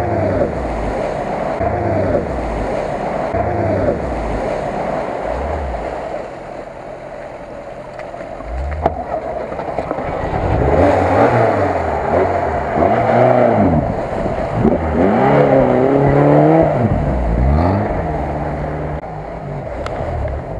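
Lada Niva's engine revving up and down repeatedly as it ploughs through deep water, with water sloshing and splashing. The revs climb hardest and loudest past the middle.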